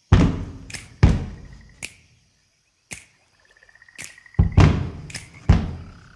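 A series of loud, sharp percussive hits, each ringing out in a low booming decay, unevenly spaced, with a faint steady buzzing tone between them.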